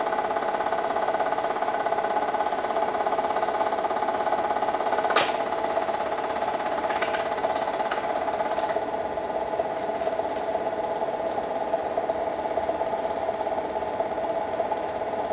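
8mm film projector running, its film-transport mechanism making a steady, rapid clatter, with a sharp click about five seconds in.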